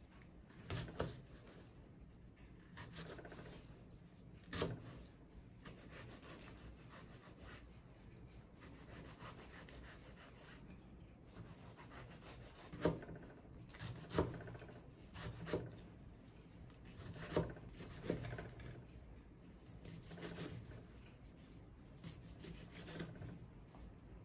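Kitchen knife dicing tomato on a plastic cutting board: irregular, faint knocks of the blade striking the board, with quieter cutting and scraping between.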